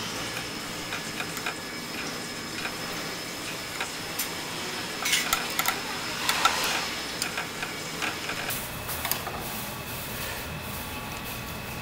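Metal chopsticks and a plastic ladle tapping and scraping in a metal pot of tteokbokki, a scatter of light irregular clicks that cluster a little more about halfway through, over a steady background hiss.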